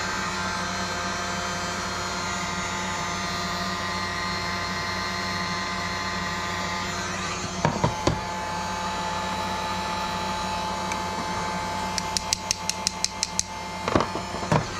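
Electric heat gun running with a steady fan whir, heating a lead jig head for powder painting. Near the end comes a quick run of light clicks, about six a second, followed by a couple of knocks.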